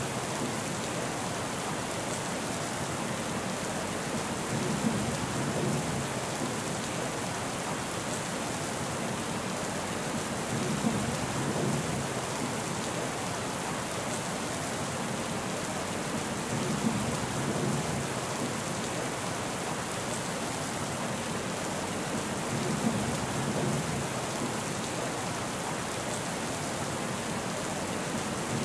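Steady rain falling, an even hiss of drops. A deeper swell with a brief sharp peak comes back about every six seconds.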